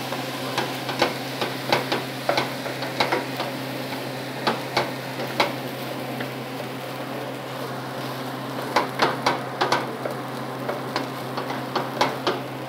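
Fried rice being stir-fried in a frying pan: a wooden spatula scrapes and knocks against the pan in irregular clusters of clicks, with a pause in the middle, over a steady frying sizzle and a low steady hum.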